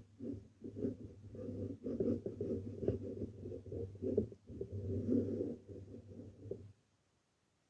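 Cardboard being worked by hand: a run of scraping and rustling strokes as it is cut, scored and folded, stopping about a second before the end.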